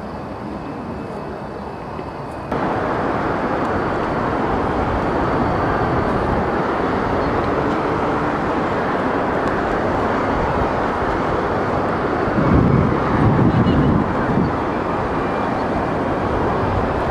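Steady rushing wind noise on the microphone of a camera carried aloft by a helium balloon. It starts abruptly about two seconds in, and a second or two of louder, rougher buffeting comes about three quarters of the way through.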